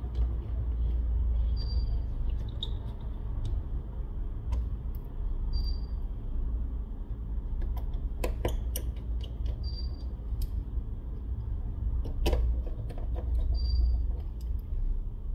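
Small clicks and taps of a precision screwdriver driving screws into a phone's plastic midframe, over a low rumble of hands and tool moving on the work mat and a faint steady hum. The loudest clicks come about eight and twelve seconds in.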